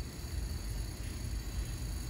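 Steady low background rumble with faint, steady high-pitched tones above it; no distinct clicks, knocks or door movement.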